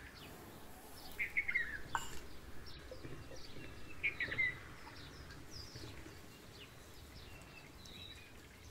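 Small birds chirping and calling, with two louder runs of quick chirps about a second in and about four seconds in.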